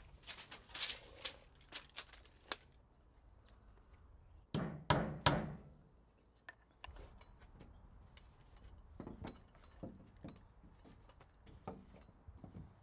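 Three quick hammer blows on timber about four and a half seconds in, the loudest sounds, among lighter clicks and wooden knocks from handling the framing and a plywood sheet.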